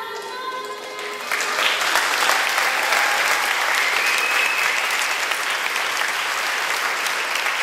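Theatre audience applauding. The applause breaks out about a second in and carries on over the act's background music.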